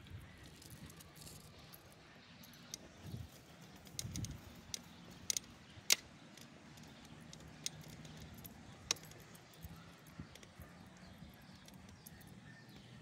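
Light metallic jingles and clinks from the tags and leash clip on a small dog's collar as it trots on a leash. Scattered sharp clinks come from about three seconds in to about nine seconds in, over a faint low background rumble.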